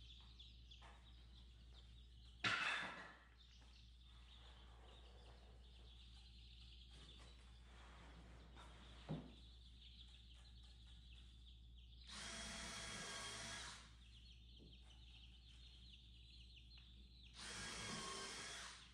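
Cordless drill running twice in even bursts of about one and a half to two seconds, over the steady high peeping of chicks in the brooder. There is a single sharp knock about two and a half seconds in.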